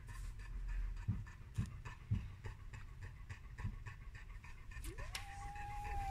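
Dog panting quickly and steadily. About five seconds in, a long, high-pitched cry rises, holds, and starts to fall.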